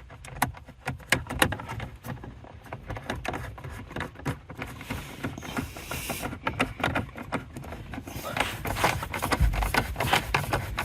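Irregular light clicks and taps of a screwdriver and small screws as the screws are put back into the Audi MMI screen's mounting, with a brief hiss around the middle and a dull bump about nine and a half seconds in.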